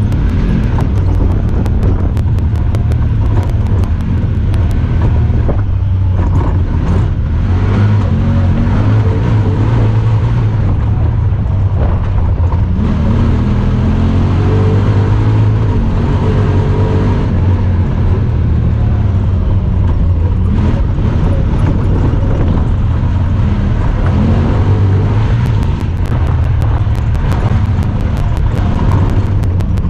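Honda Talon 1000R side-by-side's parallel-twin engine running as it drives, with the revs rising and falling around the middle.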